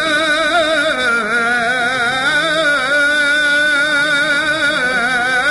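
A man's voice singing Arabic religious chant (inshad), holding long melismatic lines with a fast, even vibrato and gliding between notes.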